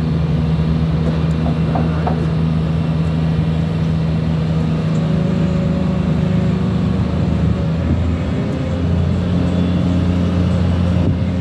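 Diesel engine of a Demag AC 300 mobile crane running steadily while it works a heavy beam lift. Its note shifts slightly about eight seconds in.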